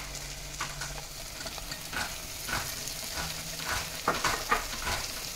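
Onion-tomato masala sizzling in oil and ghee in a pressure cooker as sliced button mushrooms are dropped in by hand, with scattered crackles and light taps over a steady frying hiss.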